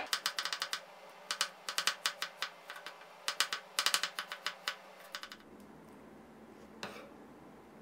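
Chef's knife slicing shallots on a wooden cutting board: rapid taps of the blade striking the board in quick runs, stopping about five seconds in. A single knock follows near the end.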